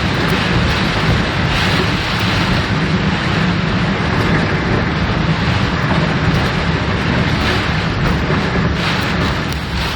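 Car driving along a flooded street: a steady rushing of water and road noise over a deep rumble.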